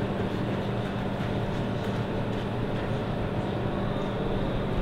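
A steady low mechanical hum, unchanging in level, with a few faint clicks over it.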